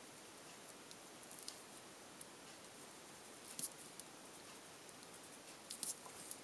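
Faint scratching of a Prismacolor colored pencil on paper: short, quick strokes in a few small clusters over a low steady hiss.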